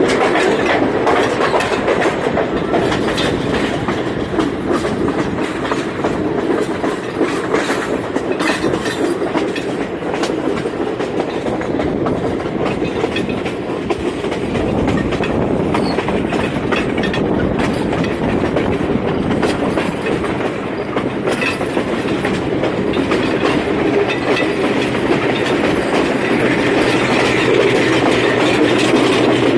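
A train running on rails, its wheels clicking and clattering over the rail joints in a continuous, steady rumble.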